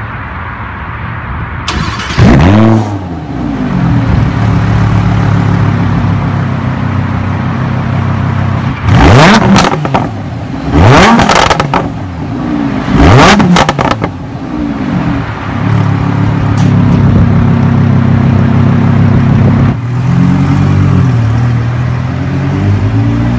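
Lamborghini Huracán LP610-4's V10 exhaust, heard from behind the quad tailpipes: idling, with a sharp rev about two seconds in and three more quick blips in the middle, then the car pulling away near the end.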